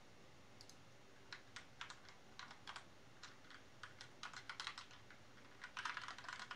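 Computer keyboard typing: faint, irregular keystrokes starting about a second in and coming faster near the end.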